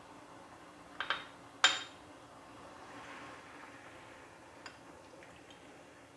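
Two sharp clinks of a kitchen utensil against cookware about half a second apart, a second in, the second the louder. Then faint swishing as a slotted spatula stirs coconut milk in a pan.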